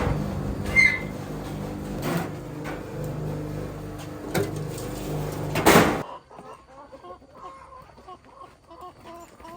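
A motor-driven machine hums steadily with knocks and clattering, then cuts off suddenly about six seconds in. Chickens are then heard clucking and calling in short, repeated notes.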